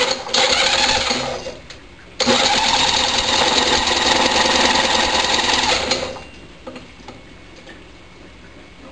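Electric drill spinning a lawnmower engine over to crank it on hydrogen (HHO) gas, a steady motorised whir in two runs: a short one of about a second and a half, then after a brief pause a longer one of about four seconds. The engine does not catch and run.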